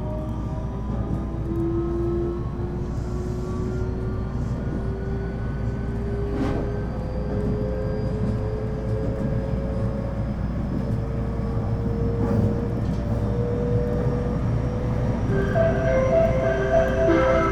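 Electric train's traction motors whining, several tones rising slowly and steadily in pitch as the train picks up speed, over the low rumble of wheels on rail. Near the end a pulsing, ringing tone joins in.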